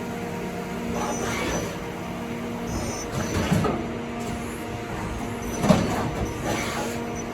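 CNC lathe running with a steady electrical hum, broken by a few short mechanical clunks and rattles, the sharpest knock a little past the middle.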